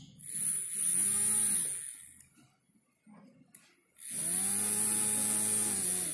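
Small brushed DC motor with a plastic propeller, switched on twice: each time it spins up, runs for about two seconds with a steady whine and a high hiss, then winds down.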